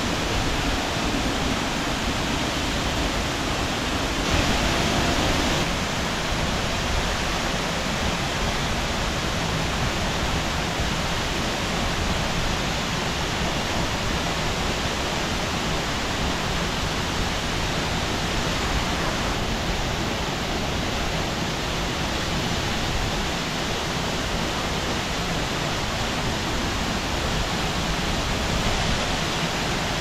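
Minoh Falls, a tall waterfall, pouring into its plunge pool: a steady, even rush of falling water.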